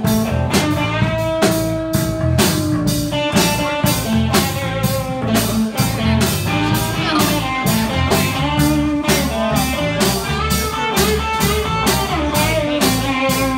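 Live blues-rock band playing an instrumental stretch: electric guitars with bending notes over a drum kit's steady beat.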